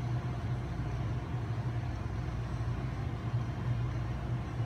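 Steady low hum of the lab room and its bench equipment, with a faint hiss above it.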